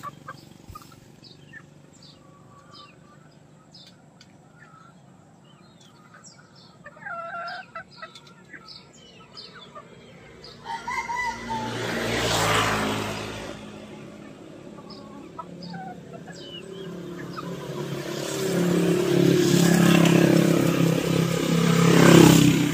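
Gamecocks in a pen clucking, with a rooster crowing. Two louder swells of noise build and fade, one about halfway through and one near the end.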